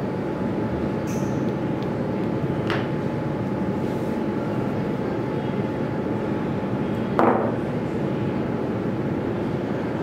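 Steady mechanical room hum with a few constant tones, like an air conditioner running. A faint click comes about a quarter of the way in, and a short knock a little past two-thirds in.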